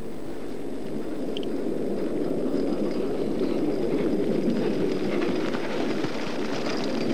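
A trotting horse pulling a sulky over snow as it comes close: a rushing noise that grows louder, with faint, quick hoof taps in the second half.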